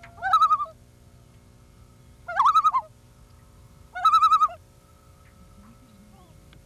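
Loon calls: three short quavering calls, each about half a second long and about two seconds apart.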